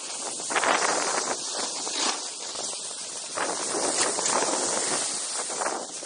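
Snowboard sliding and scraping over groomed snow: a hissing scrape that swells and fades as the board carves from turn to turn.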